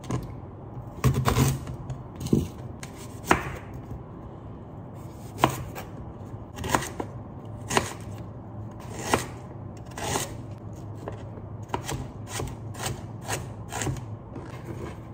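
Kitchen knife chopping ginger on a cutting board: separate sharp strikes about a second apart, coming a little faster near the end.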